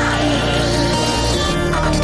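Music with sustained chords and a wavering lead melody, electronic in style.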